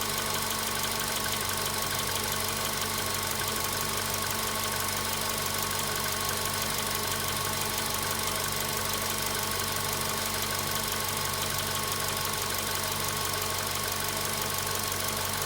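Volkswagen Polo Sedan's 1.6-litre four-cylinder petrol engine idling steadily with a fast metallic knock, which the owner calls a very strange knock at 93,000 km.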